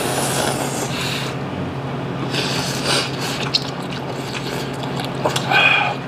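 Ramen noodles being slurped off chopsticks: a long hissing slurp at the start and another about two and a half seconds in, with smaller eating noises between. There is a short voiced sound near the end, over a steady low hum.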